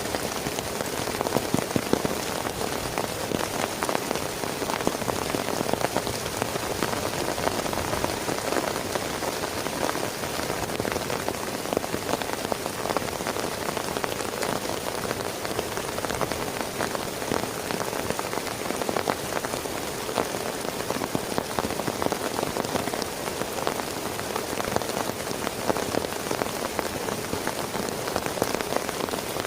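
Heavy rain falling steadily, with a dense patter of countless drops striking a nearby surface.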